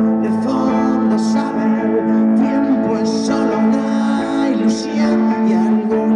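Live band music: a Korg keyboard and an electric guitar playing a song together, with sustained chords and a moving melody.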